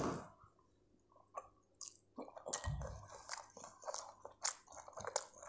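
A bite into a slice of Maggi noodle pizza, then chewing with irregular, short, clicky mouth sounds from about two seconds in.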